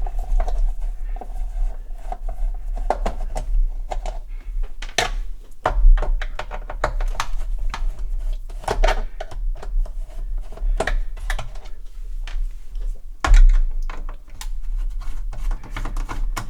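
Irregular clicks and light knocks of a Sinclair QL computer's plastic case being handled on a bench, with two louder thumps as it is set down or turned over, over a low steady hum.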